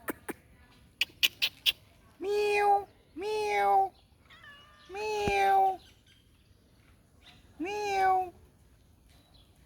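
A cat meowing four times, each meow a short, fairly steady call of under a second, spaced about one to two seconds apart. About a second in, four quick sharp clicks come before the meows.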